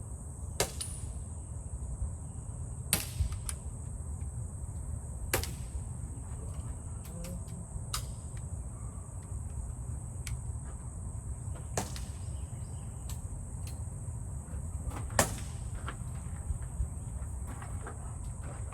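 Air guns firing on a 10 m range: about six sharp pops a few seconds apart, over a steady high chorus of crickets.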